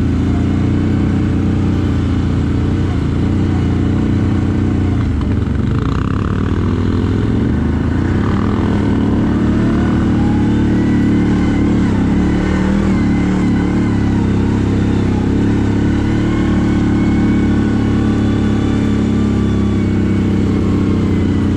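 CFMoto 1000 ATV's V-twin engine running steadily while riding. Its pitch drops and picks back up about five to seven seconds in, as the throttle eases off and opens again.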